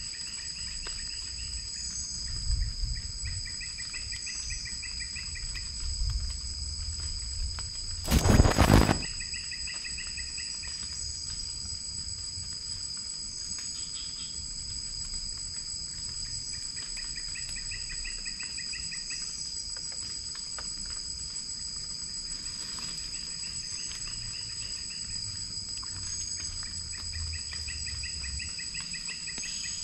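Night insect chorus: a steady high-pitched drone with a pulsed trill that repeats every few seconds. A brief, sudden loud noise about eight seconds in is the loudest thing.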